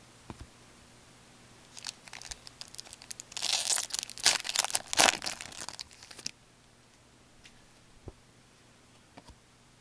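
A hockey card pack's wrapper being torn open and crinkled. The tearing starts about two seconds in, is loudest in the middle and stops a little past six seconds, followed by a few faint clicks.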